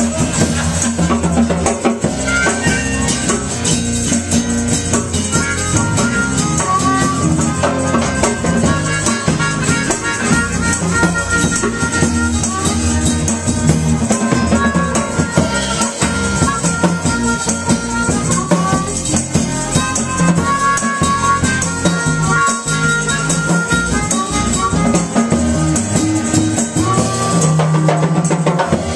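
Live acoustic band playing an instrumental passage: a harmonica plays the melody in held, stepping notes over a strummed acoustic guitar.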